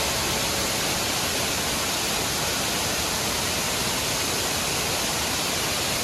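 Waterfall pouring over a rock ledge into its plunge pool: a steady, even rush of falling water with no breaks.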